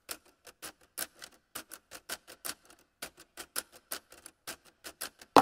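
A cat licking water with its tongue: short, wet clicks about four a second, with a few brief pauses.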